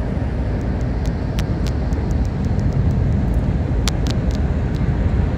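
Steady engine and tyre road noise inside a moving car's cabin, with a few faint, sharp ticks scattered through it.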